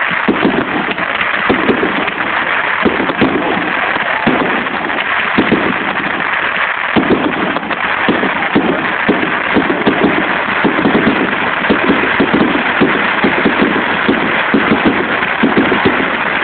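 Aerial fireworks going off in a dense, continuous barrage of bursts and crackling, the bangs packed so closely that they run together without a break.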